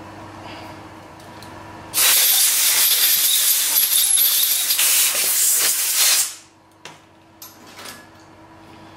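Compressed-air blow gun blasting for about four seconds, starting about two seconds in and cutting off sharply, blowing chips and tapping fluid out of a freshly tapped hole into a rag. A steady low machine hum runs beneath it before the blast, and a few light clicks follow.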